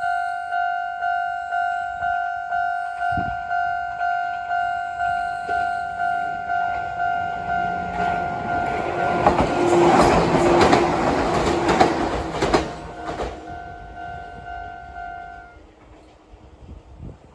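Japanese railway level-crossing alarm ringing, about two strokes a second. An Ohmi Railway train passes over the crossing from about nine to thirteen seconds in, with a loud rush and wheel clatter. The alarm stops about fifteen seconds in.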